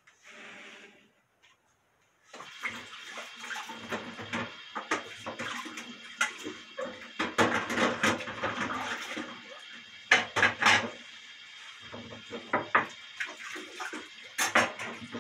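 Water running and splashing, with clattering, starting about two seconds in.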